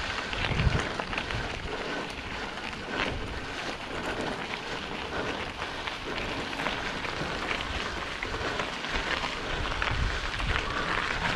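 Mountain bike rolling over a loose, stony trail: the tyres crunch gravel in a dense, steady patter of small clicks and crackles.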